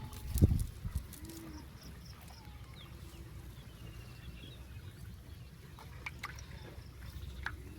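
Water trickling and dripping over a steady low rumble, with one dull thud about half a second in, a few sharp clicks later, and faint bird chirps.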